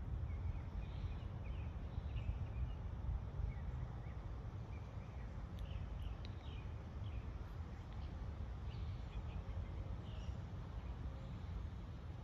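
Steady low outdoor rumble with faint, short bird chirps scattered through it.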